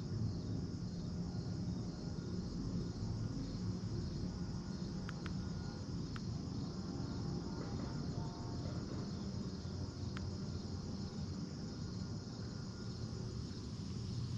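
Steady chorus of crickets and other insects in a high, even band, over a steady low rumble.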